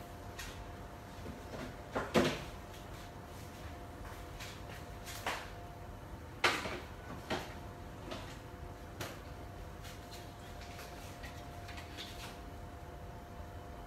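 Kitchen stove with a pot boiling and chicken skin frying. Under a steady hum, about seven sharp pops and knocks come at scattered moments; the loudest are about two seconds in and about six and a half seconds in.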